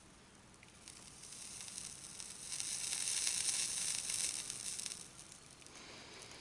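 Flux sizzling and crackling as solder melts on the hot tip of a Milwaukee M12 cordless soldering iron. The sound builds about a second in, is loudest through the middle and dies away near the end.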